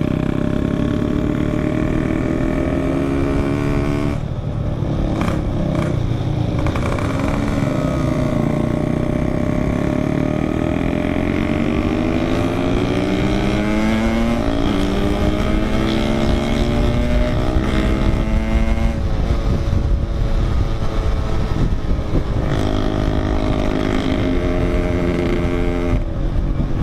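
Yamaha RX King's 135cc two-stroke single-cylinder engine running under way, its pitch rising and falling with the throttle and gear changes. It dips briefly about four seconds in, climbs steadily through the middle, and drops again near the end, over a low rumble.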